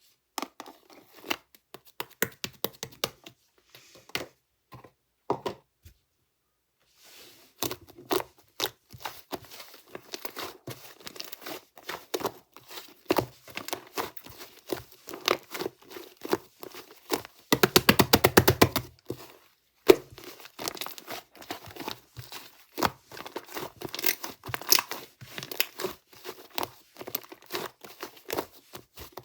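Fluffy white clay slime being squished and pulled by hand, giving irregular sticky pops and crackles. A fast run of popping clicks comes about two-thirds of the way through.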